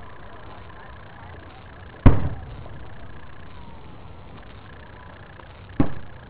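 Fireworks aerial shells bursting: two sharp booms, about two seconds in and again near the end, each trailing off in a low rumble. The second boom is a little softer than the first.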